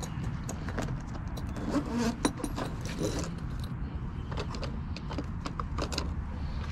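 Hand tools clinking and rattling against each other in an open tool bag as they are rummaged through, with scattered sharp metallic clicks.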